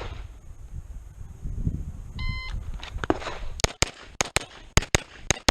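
A shot timer beeps once about two seconds in. A Beretta 92 Elite LTT 9mm pistol then fires eight shots in four quick pairs, two shots on each of four targets.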